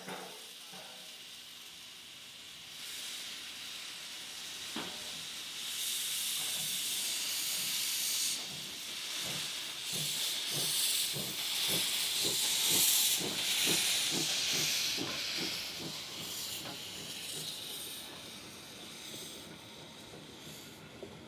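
Prussian T3 steam tank locomotive working past with its cylinder drain cocks open, steam hissing loudly, and a run of exhaust chuffs at two to three a second in the middle. There is a single knock about five seconds in, and the hiss fades as the coaches roll by near the end.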